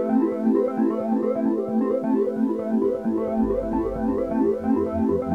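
Background music: a quick, repeating synthesizer and electric-piano pattern, joined by a pulsing bass line about three seconds in.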